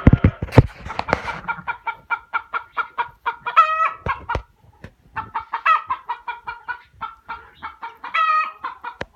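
Chickens clucking in a quick run of short clucks, broken by a few longer drawn-out calls. A few low thumps in the first second and a half.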